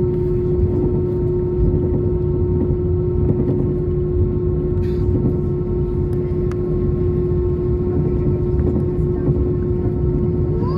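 Cabin noise inside an Airbus A320 taxiing: a steady droning hum over a low rumble from the engines at idle and the aircraft rolling.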